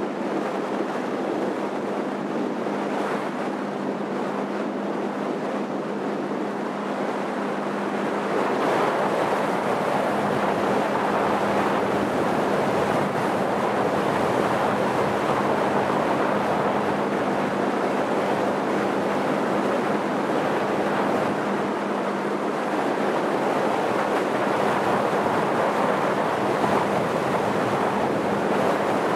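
Motorboat under way: a steady engine hum under the rush of water along the hull, with wind on the microphone. It gets louder about eight seconds in and holds there.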